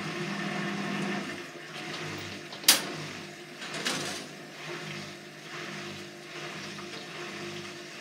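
Hotpoint front-loading washing machine drum turning wet laundry in water, with a steady motor hum and sloshing. A sharp knock about two and a half seconds in is the loudest sound, with a weaker one about a second later.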